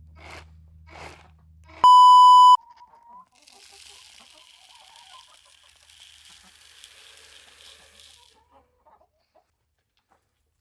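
Loud electronic censor bleep: one steady high tone held for under a second, about two seconds in, edited over the audio.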